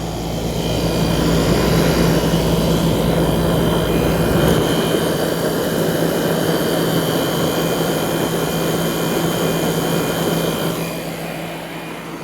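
Hampton Bay by Fedders 10,000 BTU window air conditioner running, heard from the outdoor condenser side: a steady rush of air from the condenser fan over a constant compressor hum, getting quieter near the end. The condenser coil is dirty and possibly plugged, so the airflow is poor and the unit runs hot.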